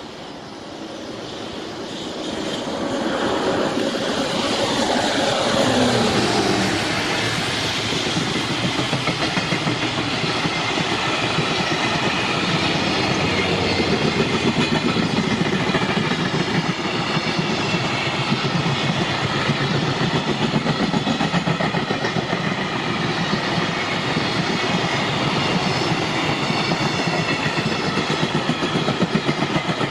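JR Freight EF210 electric locomotive hauling a container freight train past, growing louder as it approaches, with a whine that falls in pitch as it goes by. Then a long string of container flat wagons rolls past with a steady clickety-clack of wheels over the rail joints.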